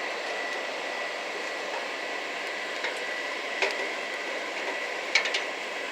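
Steady rushing air noise of a coal forge's blower running, with a thin steady whine and a few faint clicks and taps.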